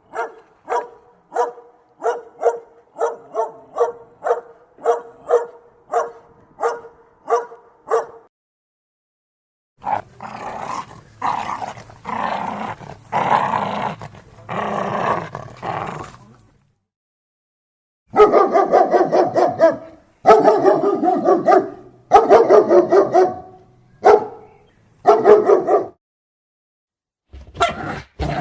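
Dogs barking in a run of separate clips. First comes a quick series of short, high yaps, about two a second, for about eight seconds. After a short gap there is a rougher, noisier stretch of barking. Then come five loud bouts of barking, each over a second long, and another begins at the very end.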